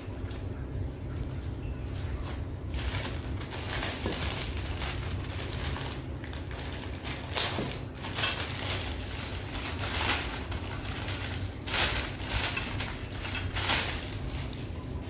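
Packaging being handled: irregular rustling and crinkling in short bursts, louder now and then, over a steady low hum.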